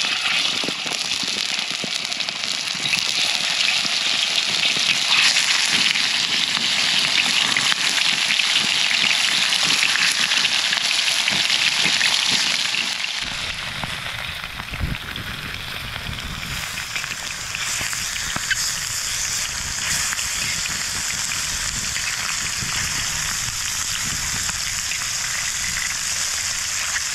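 Meat sizzling as it cooks over a fire, a steady dense hiss. About halfway through it turns quieter and a low rumble comes in beneath it.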